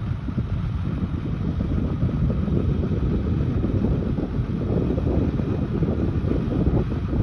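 Wind rumbling on the microphone over the low, steady running of a heavy four-wheel-drive expedition truck's engine as it drives over a sand dune.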